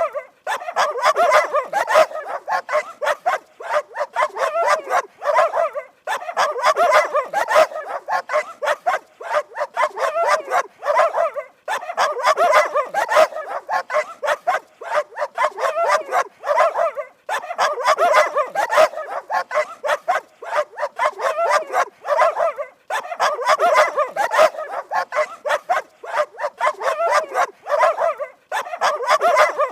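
Dogs barking rapidly and without let-up, the barks crowding close together. There are short breaks about every six seconds.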